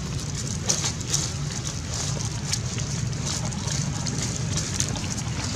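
Dry fallen leaves crackling and rustling under footsteps in scattered sharp bursts, over a steady low rumble.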